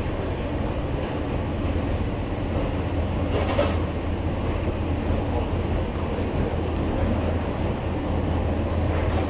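Metro escalator running: a steady low hum with a broad rumble, and a brief louder noise about three and a half seconds in.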